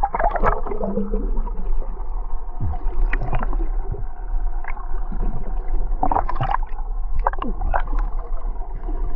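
Muffled underwater sound, as heard through a camera housing held below the surface: water sloshing and bubbling, with irregular knocks and pops and a steady low rumble.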